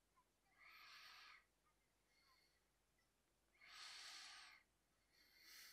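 Near silence with three faint breaths at a headset microphone, each lasting about a second.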